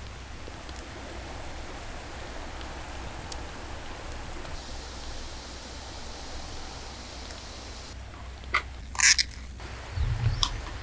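Steady rush of a mountain stream. A few sharp clicks come about three-quarters of the way in, followed by a brief low thump near the end.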